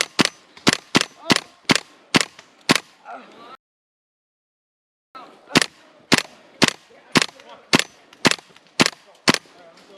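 Airsoft gun firing single shots in steady succession, about three shots a second at first and then about two a second, some seventeen in all. Near the middle the sound cuts out completely for about a second and a half.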